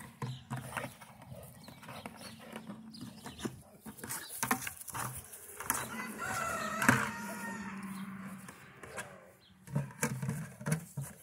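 Pit bull mouthing and shoving an empty plastic 5-gallon pail across grass: repeated knocks and scrapes of the plastic. Around the middle comes a drawn-out pitched animal call lasting about a second and a half.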